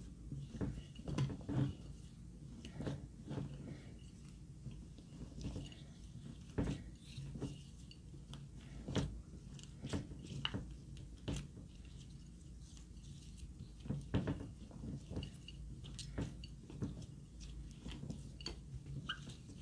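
Slime mixed with crushed eyeshadow powder being kneaded and pressed by hand in a glass bowl: irregular sticky squishes and crackly little clicks.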